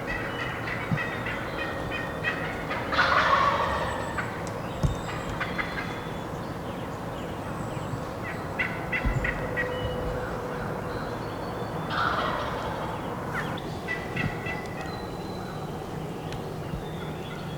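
Wild turkey gobblers gobbling twice, about nine seconds apart, from some 55 to 60 yards off through brush. Small songbirds chirp throughout.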